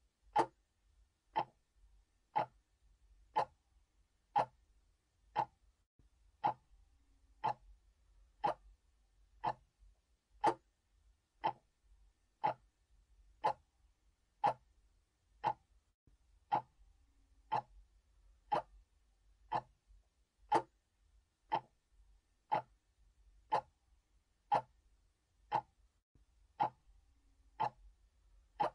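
Mechanical clock ticking steadily, about two ticks a second, with a stronger tick alternating with a weaker tock.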